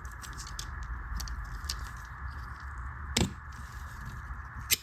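Light metallic clicks and two sharper snaps, about three seconds in and near the end, from a steel watch mainspring and small tools being handled as the spring is cut to length, over a steady background hiss.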